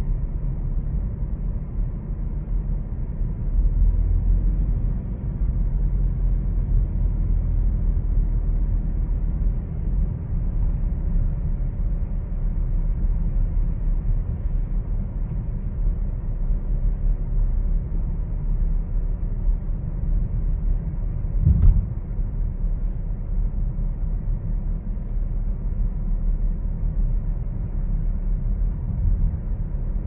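Steady low rumble of road and engine noise from a moving car, heard from inside the cabin. A single short knock about two-thirds of the way through.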